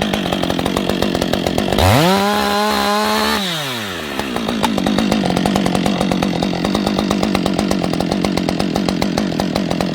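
Two-stroke chainsaw idling, revved up once about two seconds in: the pitch climbs, holds for about a second and a half, then drops back to a steady idle.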